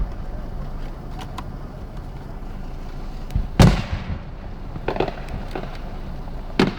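Fireworks going off: one loud bang about halfway through and more bangs near the end, with faint crackles in between, over a steady low rumble.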